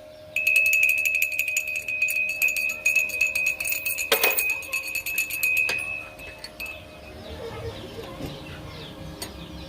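A metal cow bell being shaken, its clapper striking rapidly so the bell rings at one steady pitch, stopping about six seconds in. Faint bird chirps follow.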